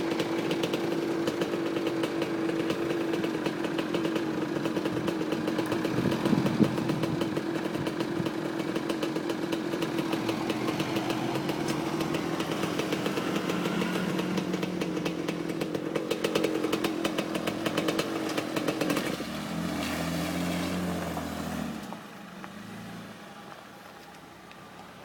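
Off-road vehicle engine running steadily under load, with a held tone and rapid firing pulses; the sound changes about three-quarters of the way through, then drops away to a quieter running sound.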